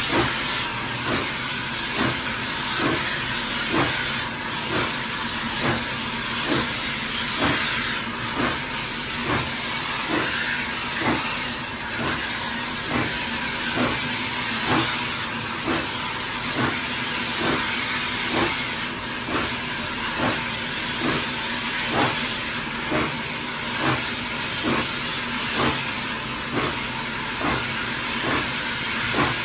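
Hunslet Austerity 0-6-0 saddle-tank steam locomotive working along the line, heard close up from its side: a steady, even rhythm of exhaust beats over a continuous loud hiss of steam.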